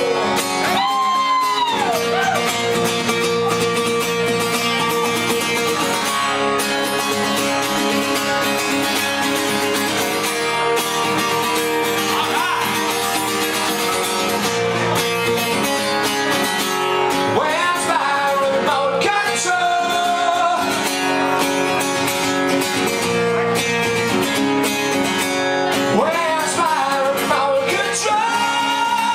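Rock band playing a wordless stretch of a song: sustained chords under a lead line of notes that bend up and down.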